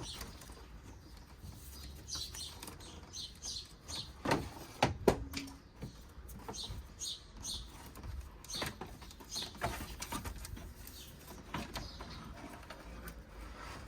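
Scattered clicks and knocks of plastic and metal as the car's electric radiator cooling fan assembly is worked free and pulled out, with the loudest knocks about five seconds in. Small birds chirp repeatedly in the background.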